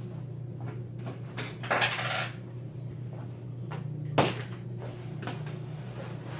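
Hard items from a tabletop photo studio kit being handled: scattered light clicks and knocks, a scraping rustle about two seconds in and a sharper click about four seconds in, over a steady low hum.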